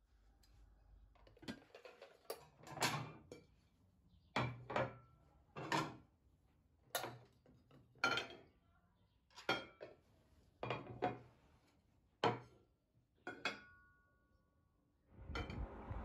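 Ceramic dishes clinking as plates and bowls are set down one after another: about a dozen separate knocks, the last one leaving a short ringing tone.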